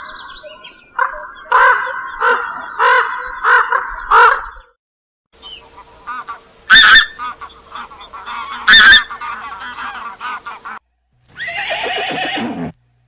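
Geese honking: a run of about six repeated honks, then a busier stretch of many overlapping honks with two very loud ones. Near the end a horse whinnies once, falling in pitch.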